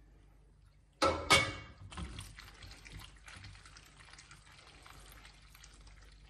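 A ladleful of reserved pasta cooking water splashes into a pan of spaghetti carbonara about a second in. The creamy pasta then makes a wet, sloppy sound as it is stirred with a wooden spoon.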